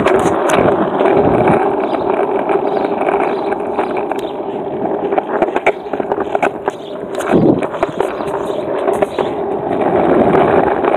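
Skateboard wheels rolling over asphalt and concrete paving: a steady rumble with sharp clacks now and then as the wheels cross cracks and joints.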